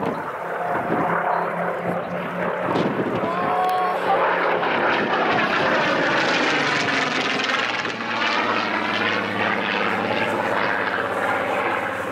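Spitfire PR19's Rolls-Royce Griffon V12 engine running hard in a display pass. Its note swells and shifts in pitch as the aircraft goes past about halfway through.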